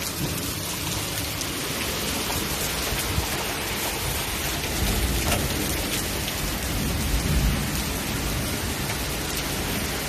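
Torrential typhoon rain pouring down steadily on ground, roofs and plants. Low rumbling swells rise twice, about halfway through and again a couple of seconds later.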